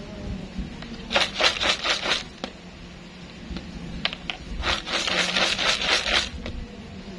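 Fried melinjo-skin chips rattling and rustling against the inside of a plastic jar as it is shaken to coat them with seasoning powder, in two bursts: about a second in and again around five seconds in.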